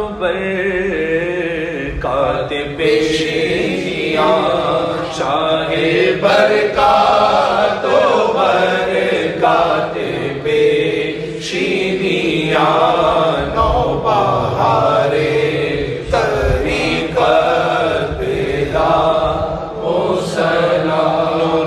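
Male voices singing an Urdu manqabat in a slow, chant-like devotional style, drawing out long wavering notes between the lines of verse.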